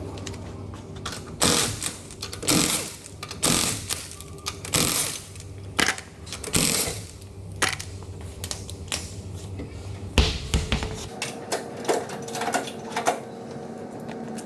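Repeated mechanical clattering, about one burst a second, then lighter scattered clicks, typical of hand-tool work during a rear brake job.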